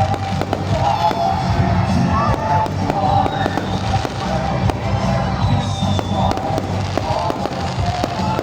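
Fireworks going off in a display, with many sharp bangs and crackles throughout, over loud music and the sound of a crowd.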